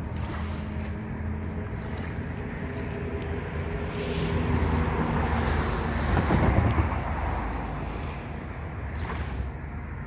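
Small waves washing onto a pebble beach, with wind rumbling on the microphone; the wash swells and peaks about six seconds in, then eases.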